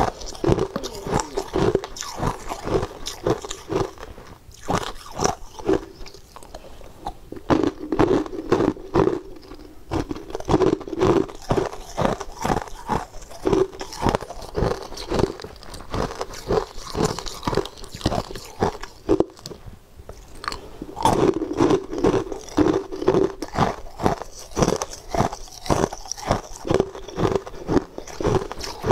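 Ice cubes being bitten and chewed: a rapid, unbroken run of crunches, several a second, as the ice is crushed between the teeth.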